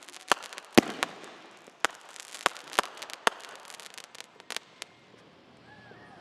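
Fireworks crackling: a rapid scatter of sharp pops and crackles, with one loud bang about a second in. The crackling thins out and dies away about five seconds in.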